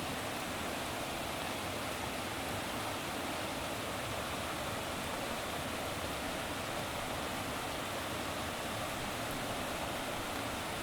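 Steady rushing water, an even unbroken noise with nothing standing out from it.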